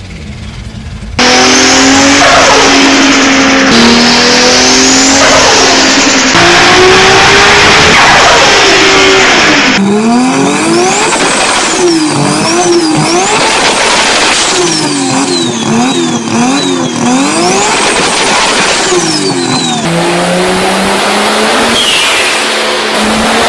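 Turbocharged performance car engines revving hard, the engine note climbing and falling again and again. It sounds like a run of short clips, cut abruptly every few seconds.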